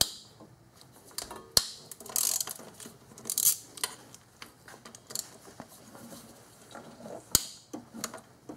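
Hand ratchet with a hex-bit socket turning the throttle body's Allen-head bolts: pawl clicking in short raspy runs, with a few sharp metal clicks and knocks of the tool on the bolt.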